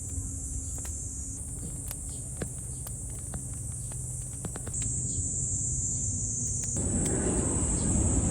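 Steady high-pitched buzzing of summer insects, with scattered faint clicks. Near the end a low rushing noise swells up underneath.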